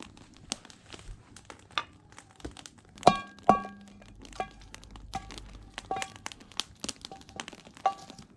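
Repeated sharp metallic clinks and knocks, several ringing briefly at the same pitch, with the two loudest about three seconds in: a metal pan being handled and set onto a fire pit.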